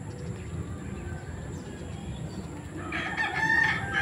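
A rooster crows once, starting near the end, a loud pitched call lasting about a second and a half over a low rumble.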